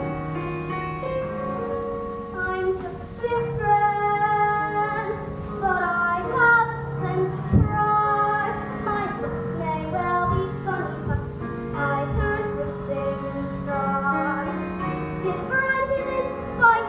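A young girl singing a musical-theatre solo over instrumental accompaniment.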